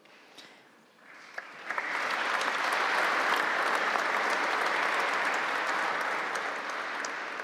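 Audience applause that builds about a second in, holds steady, and begins to fade near the end.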